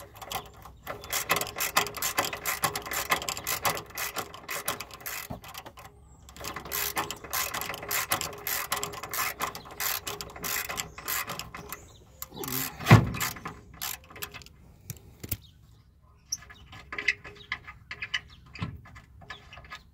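Socket ratchet clicking in long runs of rapid strokes as a 15 mm bolt on the old front sway bar is backed out, with a brief pause about a third of the way in and one loud knock a little past halfway.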